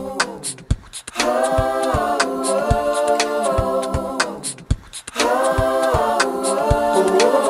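A cappella vocal music: several voices singing held chords over a steady clicking beat, breaking off briefly about a second in and again around five seconds in.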